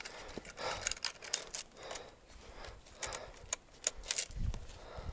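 Scattered sharp clicks and light rattles with rustling, as gear and metal parts of a fallen motorcycle are handled and jostled, with a louder knock and bump about four seconds in. No engine is running.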